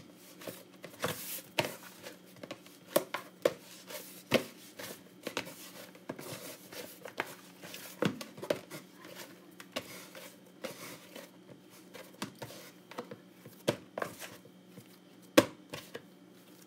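Hands kneading flour dough in a plastic bowl: irregular soft thumps and knocks as the dough is pushed, folded and turned against the bowl, with a light brushing rustle of hands and flour. One louder knock comes near the end.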